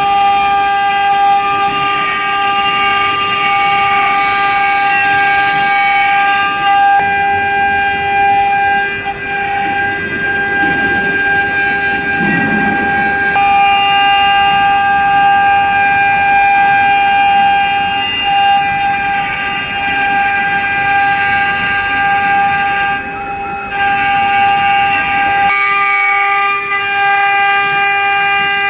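Water-cooled 2.2 kW spindles of a three-head CNC engraving machine running at high speed: a loud, steady high-pitched whine with a cutting noise underneath. Several of the higher tones drop out for a few seconds about a quarter of the way in, then return.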